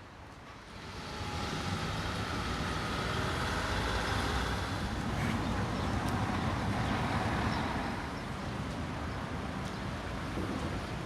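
A motor vehicle passing along a rain-wet street, its engine and tyre hiss building about a second in and easing off near the end, over steady rain.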